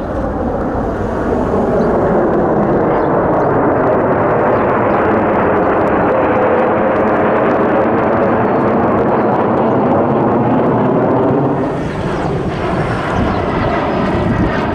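Jet aircraft engine noise from a military jet passing: a loud rushing roar that builds over the first two seconds and holds steady, dips briefly about twelve seconds in, then carries on.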